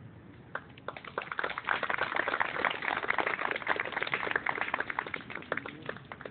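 Guests applauding: many hands clapping, swelling about a second in and dying away near the end.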